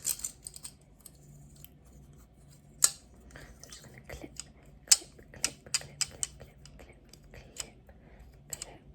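Irregular sharp clicks and snips of small objects handled close to the microphone, about a dozen spread unevenly, with soft handling noise between them.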